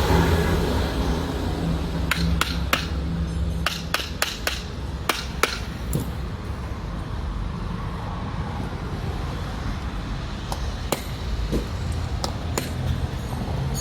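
Sharp taps and clicks of hand tools working on starter motor parts, a cluster of them a couple of seconds in and a few more near the end, over the low hum of a vehicle engine running nearby that fades after about four seconds and returns at the end.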